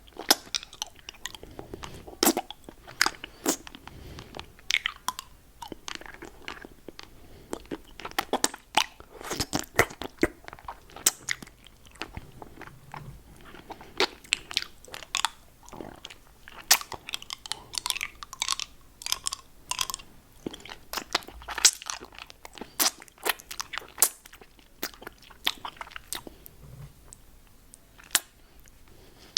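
Close-miked mouth sounds on a hard-candy lollipop: tongue, lips and teeth working the candy in a stream of irregular sharp, wet clicks, often several a second in clusters.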